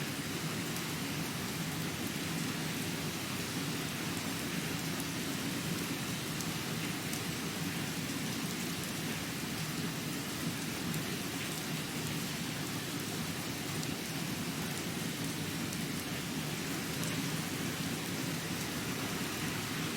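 Steady rain falling, with scattered small drop ticks.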